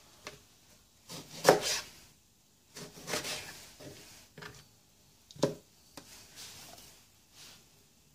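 Kitchen knife chopping a tomato on a plastic cutting board: irregular knocks of the blade on the board, the loudest about a second and a half in and another about five and a half seconds in, with softer handling sounds between.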